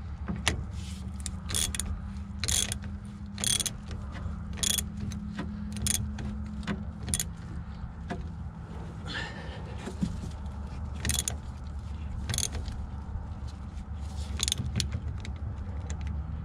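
Hand ratchet wrench clicking in short bursts roughly once a second as the pitman arm's retaining bolt on the steering box sector shaft is tightened, over a steady low hum.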